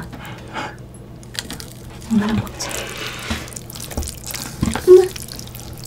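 Wet eating sounds from a mouthful of jjajangmyeon noodles in black bean sauce: chewing and slurping, with two short hums, the louder one near the end.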